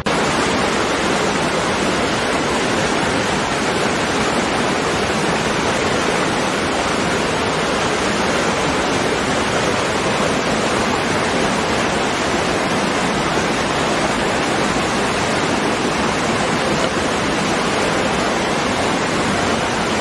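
Small waterfall plunging into a rocky pool: a steady, unbroken rush of falling and churning water.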